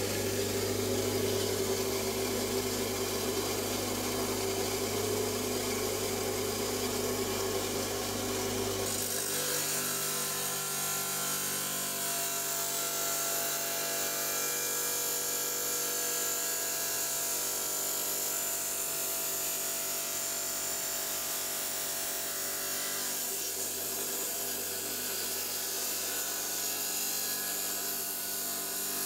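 Electric stone saw running and cutting a thin slice off a stone nodule with a quartz core, a steady motor hum with a grinding, rubbing edge. About nine seconds in the low hum drops away and a higher hiss takes over.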